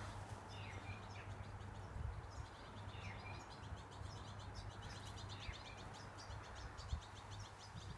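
Garden birdsong, faint: a small bird's rapid twittering trills with a few short downward-sliding notes, over a low steady rumble.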